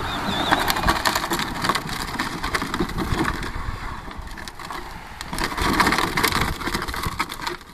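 Hard plastic wheels of a child's Power Wheels Barbie Jeep ride-on crunching and crackling over loose gravel as it rolls along.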